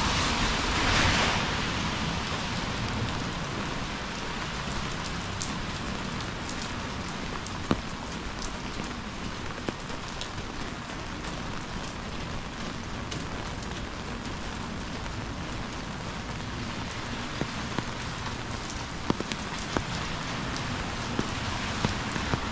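Heavy rain falling steadily on the street as an even hiss, with a louder rush of it in the first second or so and scattered sharp ticks of drops near the microphone.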